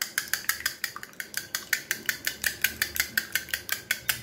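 Wire balloon whisk beating raw eggs in a ceramic bowl, its wires clicking against the bowl in a quick, even rhythm of about eight strokes a second.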